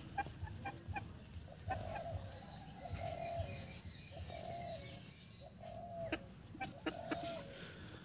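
Aseel chicken giving a series of short, low clucking calls, about six in a row a second or so apart.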